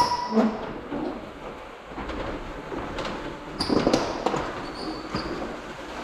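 Metal roller shutter door rolling up, rattling and scraping, with a few short high squeaks about halfway through.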